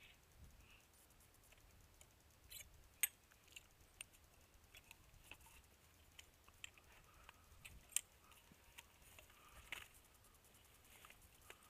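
Scattered light clicks and metallic ticks from hands working at the muzzle of a Franchi Affinity 20-gauge shotgun, swapping a choke tube with a choke wrench. The two sharpest clicks come about three and eight seconds in.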